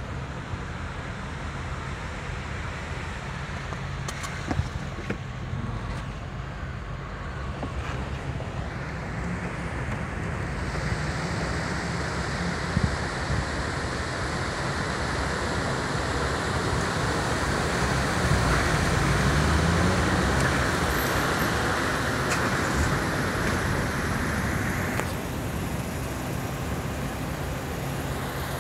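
Car traffic on a rain-flooded street, with engines running and tyres swishing through water on the road. The sound swells from about ten seconds in, is loudest around twenty seconds, and drops off suddenly a few seconds before the end.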